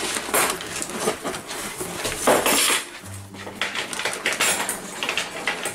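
Paper and cardboard rustling and scraping in irregular strokes as hands move packing around inside a cardboard shipping box.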